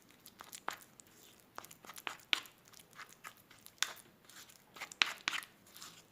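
A spoon stirring a thick paste of mashed boiled turnip, powdered milk and flour in a bowl: irregular scrapes and light clicks of the spoon, a few each second.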